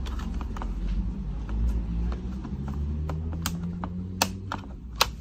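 Plastic keyboard bezel of a Dell Latitude E7440 laptop being pried off with a plastic opening tool: scattered sharp clicks as its clips snap loose, the two loudest near the end. A low steady hum runs underneath.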